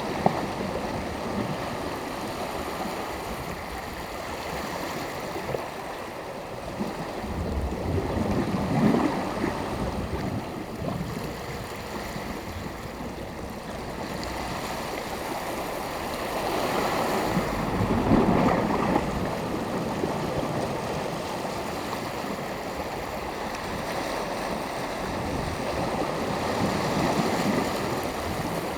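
Sea surf: small waves breaking and washing up the shore, the rush swelling about every nine seconds, three times.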